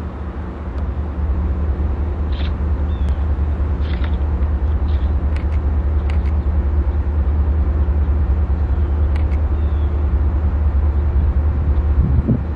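Diesel locomotives of an approaching freight train running with a deep, steady engine drone that grows slightly louder as they near. There is a brief louder swell near the end.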